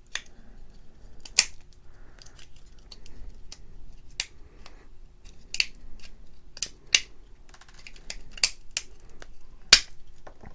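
Thin PLA support material snapping and cracking as it is broken off a 3D print: about a dozen sharp, irregular clicks, the loudest near the end.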